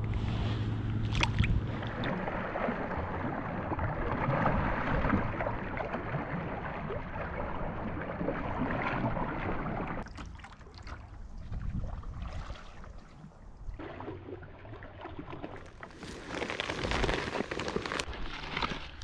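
Water sloshing and lapping against a kayak on a loch, with wind. Near the end come footsteps rustling through ferns.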